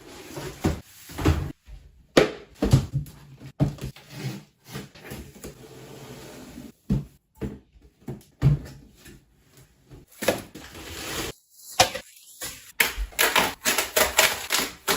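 Household handling noises: a quick run of knocks, clicks and clatter with short stretches of rustling, broken by abrupt cuts.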